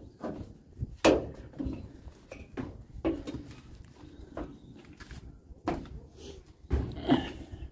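Footsteps and knocks on the rusted metal floor and loose boards of a gutted bus shell: irregular thuds and clanks, the sharpest about a second in and again near the end, over a low rumble of wind on the microphone.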